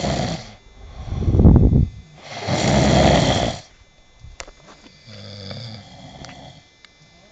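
A person snoring: a loud, low rattling snore, then a long breathy breath, and a fainter snore near the end.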